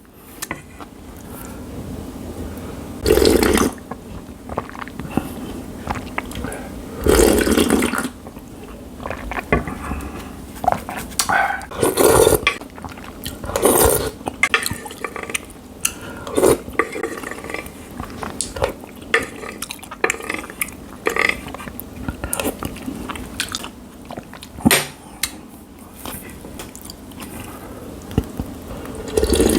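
Close-miked eating of spicy seafood jjamppong ramen: repeated slurps of noodles and broth, with chewing and swallowing between them.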